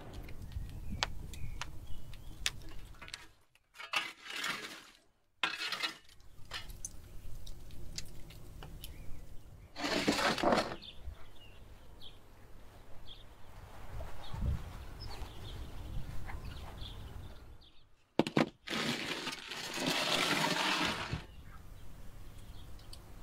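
Wood embers crackling with sharp clicks in a wood-fired oven, then a few louder noisy bursts that could be pans and trays being handled.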